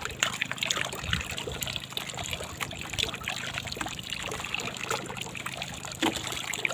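Water trickling and splashing, with small scattered clicks and knocks over a faint steady low hum.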